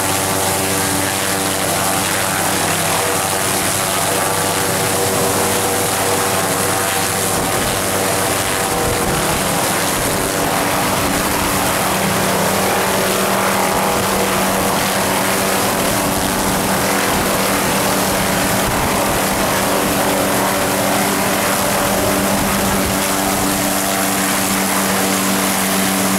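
Small police helicopter's turbine engine and rotor running on the ground after landing: a steady hum over a continuous high hiss. A rough low rumble joins about a third of the way in.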